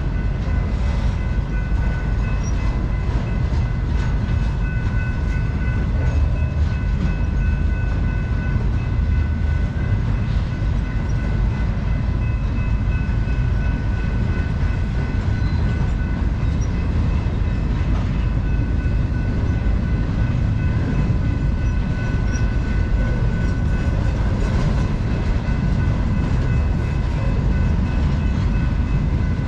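Cars of a long intermodal freight train rolling past: a steady, heavy low rumble with a set of high, steady ringing tones running over it.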